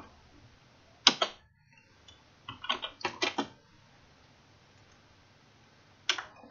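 Computer keyboard keystrokes and mouse clicks: a quick pair about a second in, a run of about five between two and a half and three and a half seconds, and another pair near the end, with quiet in between.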